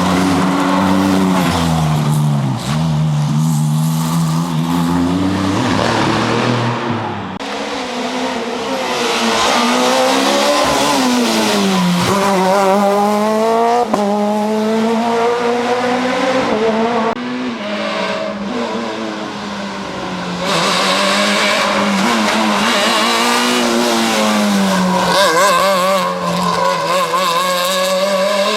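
Ford Fiesta RS WRC rally car's 1.6-litre turbocharged four-cylinder engine revving hard, its pitch climbing and dropping again and again through gear changes. The sound changes abruptly a few times, as if cutting between passes.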